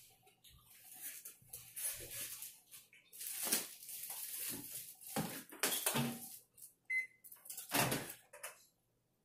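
Food containers and wrapping being handled in a string of rustles and knocks, with one short microwave keypad beep about seven seconds in as the ribs are set to reheat.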